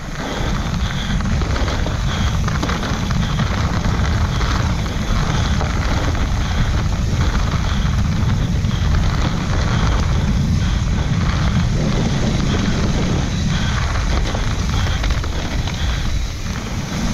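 Heavy wind rumble on the microphone with tyre and trail noise from a mountain bike descending fast over dirt and rock, building up in the first second and then holding steady.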